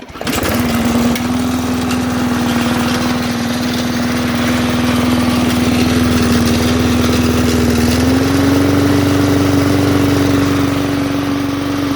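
Classic flathead Briggs & Stratton push-mower engine starting up within the first half second, then running steadily. Its speed picks up slightly about eight seconds in.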